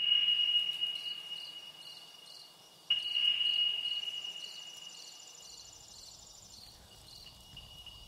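A high, pure ringing tone sets in suddenly, fades over a few seconds and strikes again about three seconds in. Under it, crickets chirp faintly at about two chirps a second.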